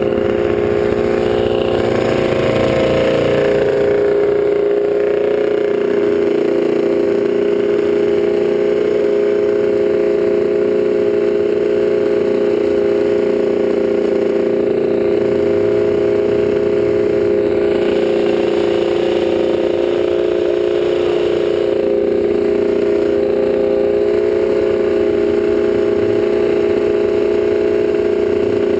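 ATV engine easing off in the first few seconds as the quad comes to a stop, then idling steadily.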